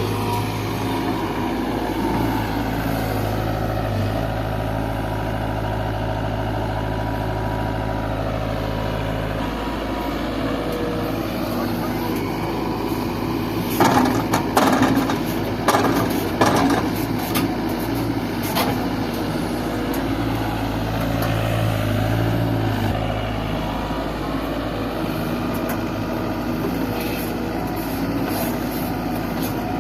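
JCB 3DX backhoe loader's diesel engine running steadily. A short burst of loud knocks and clattering comes about fourteen to seventeen seconds in, with one more knock shortly after.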